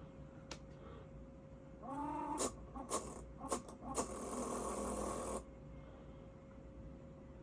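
Lenovo Y50-70 laptop making a strange sound: a steady high whine with a faint, soft repeating noise about once a second. From about two seconds in, a louder stretch of several clicks and noise, led by a short pitched sound that rises and falls, cuts off suddenly near five and a half seconds.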